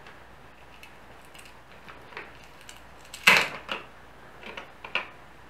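Small clicks and taps of a disassembled waterproof camera's plastic parts and circuit board being handled, with one louder clack about three seconds in.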